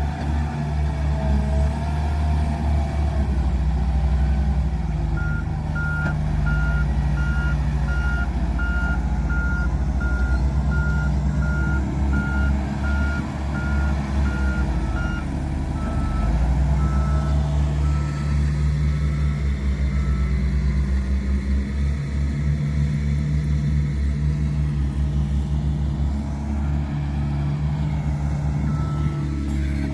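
Wheel loader's diesel engine running steadily under work, with its reversing alarm beeping at an even rate of about one and a half beeps a second from about five seconds in. The beeps fade after about fifteen seconds, stop after about twenty, and start again near the end.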